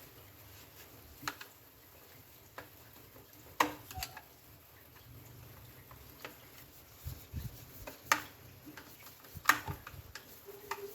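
Scattered light clicks and knocks of a hand tool against a chainsaw's bar and chain while the chain tension is adjusted, a few of them sharper.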